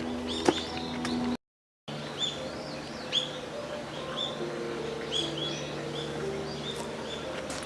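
Small birds chirping, short repeated curved notes, over soft background music of held notes. The sound drops out completely for about half a second near the start.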